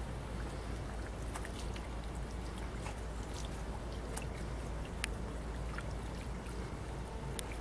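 Steady rushing of water at a weir: a constant noise with a deep rumble under it, and a few faint light clicks scattered through it.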